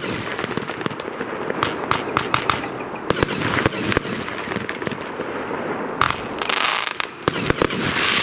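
Geisha Event Immortal Gold 30 mm firework battery firing: a quick, uneven run of sharp launch shots and shell bursts, with a spell of hissing from burning gold stars after about six seconds.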